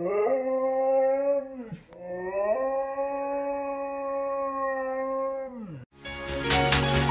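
Siberian husky howling: two long howls, the first briefly rising and then falling away, the second rising and held steady for several seconds before sliding down at its end. Music begins abruptly about six seconds in.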